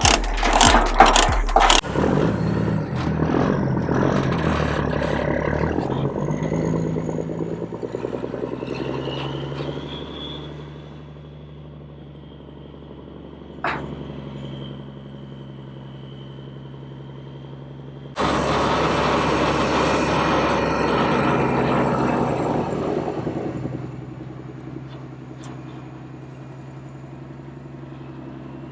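Heavy truck's diesel engine running, with a faint whine rising in pitch. About eighteen seconds in it suddenly gets much louder for about five seconds, then drops back.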